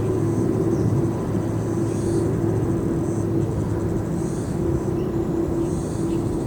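Jet airliner engines running as a steady rumble with a held hum, without any rise or fall in pitch.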